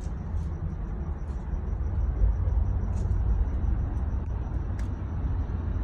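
Propane burner running on high under a stainless steam-table pan, a steady low rumble, with a few faint clicks as ingredients are dropped into the metal pan.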